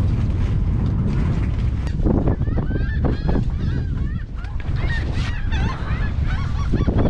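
Wind buffeting the microphone with a steady low rumble. From about two seconds in, a flock of birds calls over it with many short, arching, honk-like calls in quick irregular succession.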